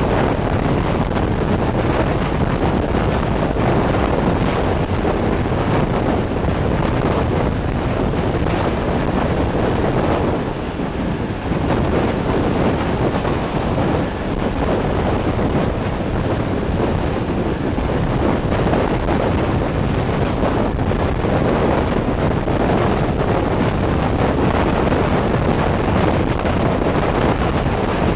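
Wind buffeting the microphone held out of a moving train carriage's window, over the steady running noise of the train on the track. It eases briefly a little after ten seconds in.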